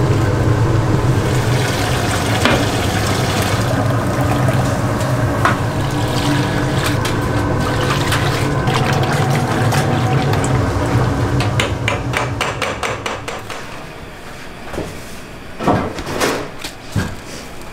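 Street-food kitchen noise: a steady low hum with a liquid sound over it. About twelve seconds in, the hum fades and a run of clicks and clanks of utensils follows.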